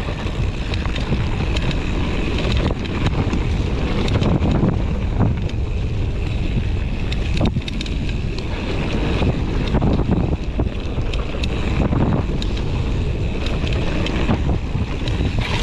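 Wind buffeting the action camera's microphone over the rumble of mountain bike tyres on a dirt singletrack, with scattered sharp clicks and rattles from the bike as it rides.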